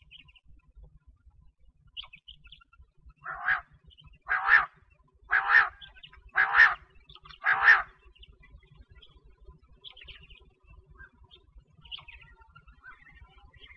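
A quail (batair) calling five times in a row, about one call a second, each call short with a double-pulsed sound. Faint small bird chirps follow.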